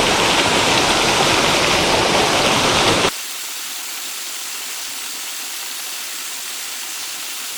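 Rushing water of a small mountain-stream waterfall, a steady even roar. About three seconds in it cuts abruptly to a quieter, thinner hiss of water.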